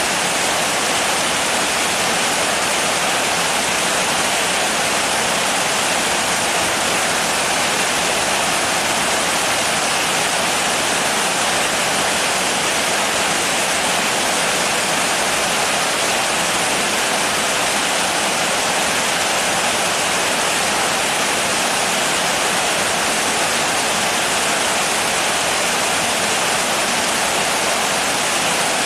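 Heavy rain falling as a steady, even hiss, with no single drops or thunder standing out.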